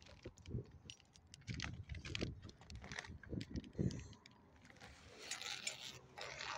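A bicycle rattling as it rolls over pavement: many small irregular clicks and knocks with low thumps. A burst of hiss comes about five seconds in and lasts a second or so.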